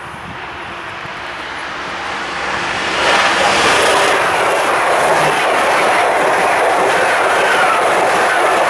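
ICE 3 high-speed train approaching and passing at speed: a rushing noise that grows steadily, jumps loud about three seconds in as the front of the train reaches the camera, then holds steady as the coaches go by.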